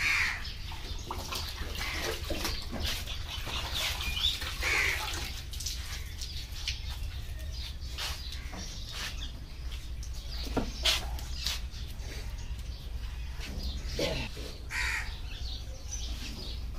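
Crows cawing now and then, a few separate calls spread over the stretch, over a steady low hum. Water sloshing and scattered small knocks as meat is handled in a bucket of water.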